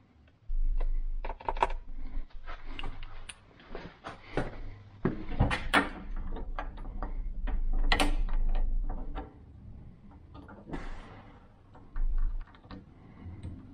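Irregular clicks, taps and knocks of a hasp and a marker being handled against the steel door of an electrical switchboard enclosure, with the loudest knocks around the middle.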